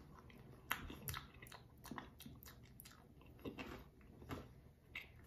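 A person chewing a tortilla chip: faint, irregular crunches, loudest about a second in.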